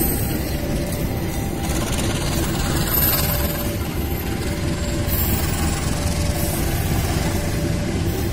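Diesel locomotive engine rumbling steadily at a railway level crossing. A faint tone repeats about once a second over it.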